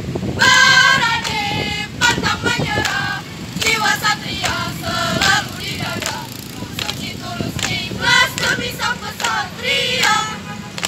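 A troop of young scouts chanting and singing a cheer in unison in high voices, in short shouted phrases, punctuated by sharp claps as they march in formation.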